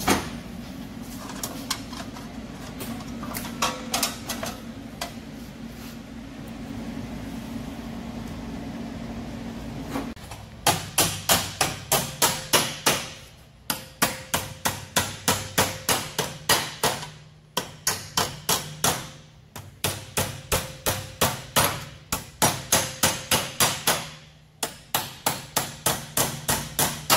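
For about the first ten seconds, a steady low hum with a few light taps. Then a hand hammer strikes sheet metal held over a steel bar clamped in a bench vise, about three blows a second in runs of several seconds with short pauses. Each blow rings briefly as the panel for a hand-built air intake is formed.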